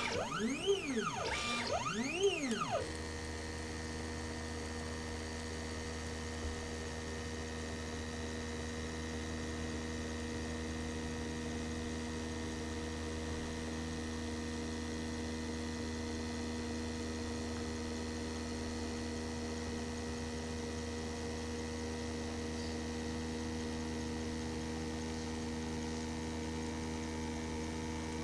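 Diode laser engraver working: for the first three seconds its stepper motors whine, rising and falling in pitch as the head moves quickly. After that the machine settles into a steady hum of several fixed tones while the head engraves slowly.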